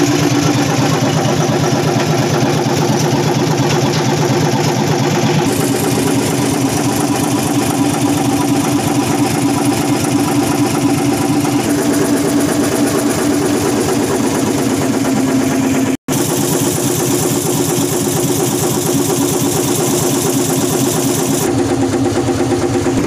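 Hino EM100 six-cylinder diesel engine running steadily, alive again after years of sitting unused. It cuts out for an instant about sixteen seconds in.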